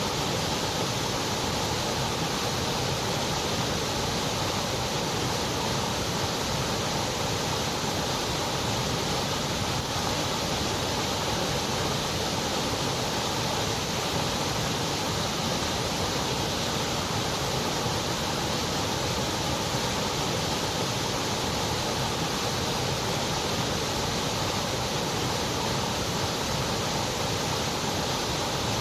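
Steady white noise: an even, unbroken hiss that does not change in level or character.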